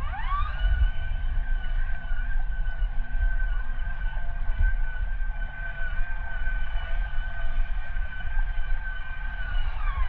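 Electric whine of an RC crawler's sensored brushless motor and gear drivetrain (Hobbywing QuicRun Fusion in a Traxxas TRX4 Sport): it climbs in pitch as throttle is applied, holds steady while the truck wades through the muddy water, and drops away near the end as it slows. A low rumble runs underneath.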